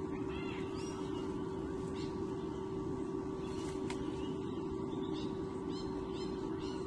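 Steady electrical hum with a constant low tone from the nest camera's audio. Over it come faint, short, high bird calls on and off, with a quick series of them about five to six seconds in.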